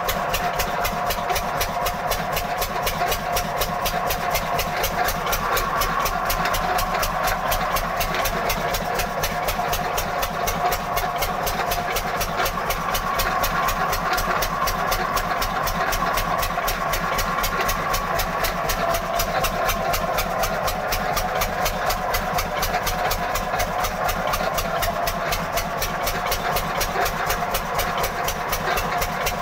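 An old 1975 10-horsepower engine running steadily with a fast, even beat, turning a flat belt drive.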